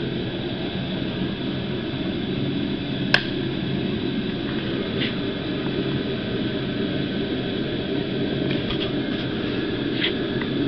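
Steady mechanical drone of background noise, like a running fan or machine, with a sharp click about three seconds in and fainter ticks near five and ten seconds.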